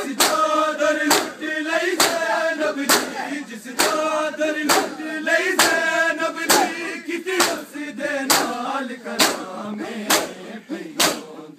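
A group of men chanting a noha, a Shia mourning lament, in unison, with loud slaps of hands beating bare chests in time (matam) about once a second.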